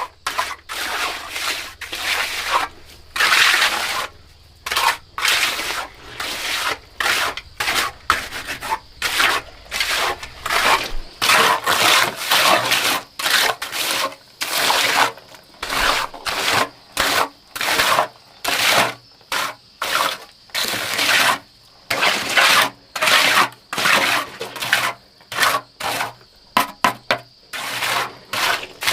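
Quick, repeated scraping strokes in an uneven rhythm, roughly one to two a second, with brief pauses between them.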